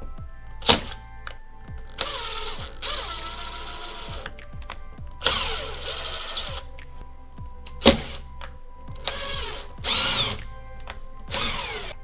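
Power drill running in five short bursts, its pitch dropping as it bites, drilling holes or driving wall anchors into drywall for a soundbar mount. Two sharp knocks, one about a second in and one about two-thirds through, over background music.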